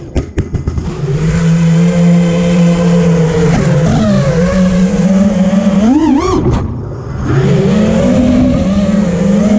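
A 5-inch FPV racing quadcopter's brushless motors and propellers whining, heard from its onboard camera. The pitch holds steady, sweeps sharply up about six seconds in, sags briefly, then settles again as the throttle changes.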